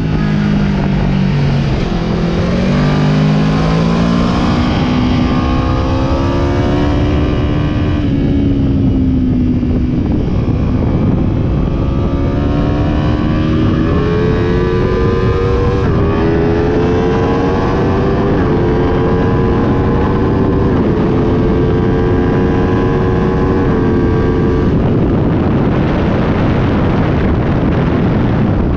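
Aprilia RSV4 1100 Factory V4 engine heard onboard at speed. It drops in pitch at first, then climbs through the gears in stepped rises with short breaks between, and runs fairly steady through the middle. Near the end the engine note gives way to wind rush.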